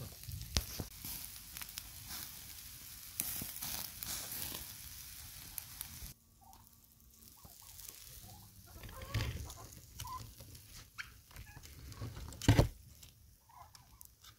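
Turkey kebabs on metal skewers sizzling and crackling over hot charcoal; about six seconds in this stops abruptly and is replaced by the skewers and meat being handled on a wooden cutting board, with scattered knocks and clinks, the loudest a sharp knock near the end.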